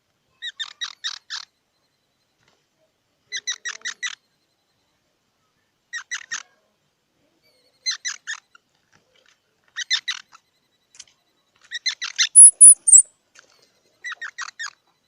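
Squirrel calling: short bursts of rapid chirps, each a handful of strokes, repeating about every two seconds. About twelve seconds in, a brief, very high-pitched squeal rises over a louder burst and is the loudest sound.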